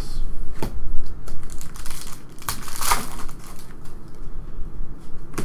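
Trading cards being handled and flipped through, with irregular papery rustles, crinkles and small clicks, loudest about three seconds in.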